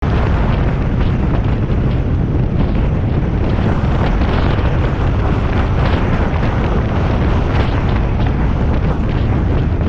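Steady, loud rumble of wind and road noise from a 1993 Ford Ranger driving at highway speed, with wind buffeting the microphone.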